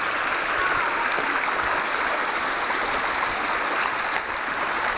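Shallow stream running and splashing over mossy rock steps in small cascades, a steady rushing of water.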